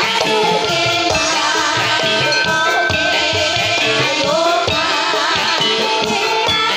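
Javanese ebeg (kuda kepang) dance music: an ensemble with drums and rattling percussion under a wavering melody.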